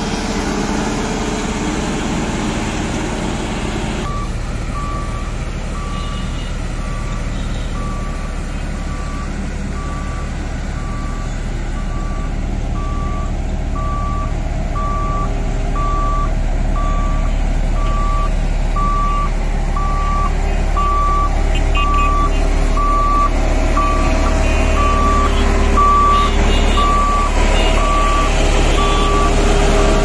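For the first few seconds, a Mahindra Roadmaster G90 motor grader's engine runs. After that, an L&T 1190 road roller's diesel engine runs with its reversing alarm beeping steadily, about one and a half beeps a second. The engine rumble grows louder toward the end as the roller comes close.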